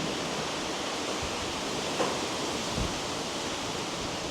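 Gale-force wind blowing steadily through trees and buffeting the microphone, with a short knock about two seconds in.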